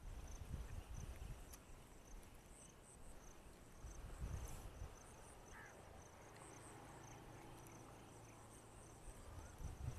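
Faint, high-pitched insect chirping, short pulses repeating steadily, with low rumbles on the microphone now and then.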